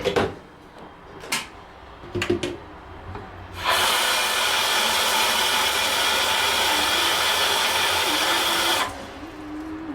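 A small electric motor appliance running with a steady whirring hiss for about five seconds, switched on a few seconds in and off near the end, after a few light clicks and knocks.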